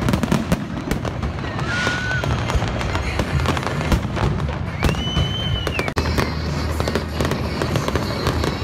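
Aerial fireworks display: a dense run of bangs and crackling from bursting shells, with two short whistles that rise and fall, the second higher and about a second long.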